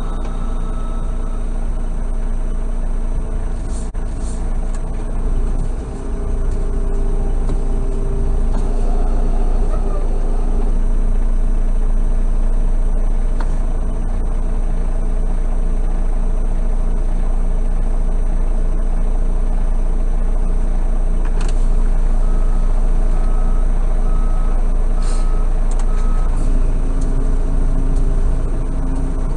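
Semi truck's diesel engine idling steadily, heard from inside the cab as a loud, low drone. Near the end a short run of evenly spaced beeps sounds, with a few sharp clicks scattered through.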